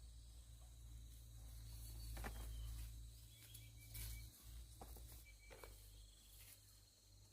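Near silence with a faint, high, steady insect trill, likely crickets, and a few soft clicks or rustles.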